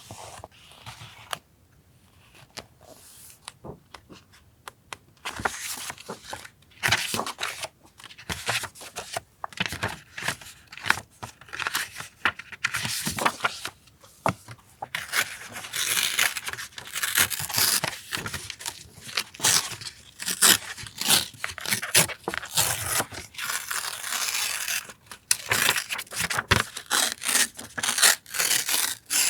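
Paper being torn and handled close to the microphone, in many short rustling, scratchy strokes. They come sparsely at first and crowd together through the second half.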